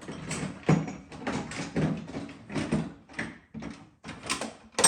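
Irregular series of knocks and clattering, about two to three a second, with a sharper, louder knock near the end.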